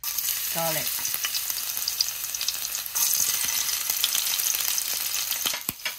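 Greens sizzling as they are stir-fried in a hot pan, a steady hiss with scattered small crackles that starts abruptly.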